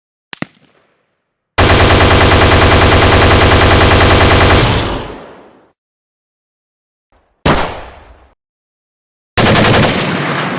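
A run of separate gunshot sound effects with silence between them. First a small sharp shot, then a burst of automatic machine-gun fire lasting about three seconds that dies away, then a single shot with a fading tail, and near the end another short rapid burst that rings on.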